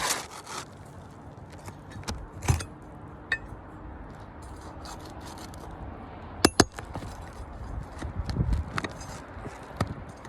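Scattered clicks, clinks and scraping, with two sharp clicks close together about six and a half seconds in.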